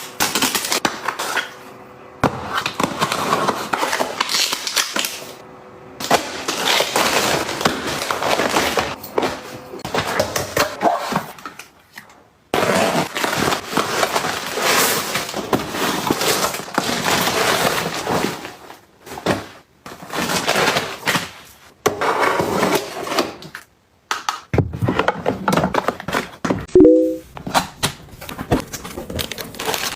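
Restocking handling sounds: packaging crinkling and rustling, and items knocking and clattering as they are unpacked and set in place, in a run of short clips that cut off abruptly.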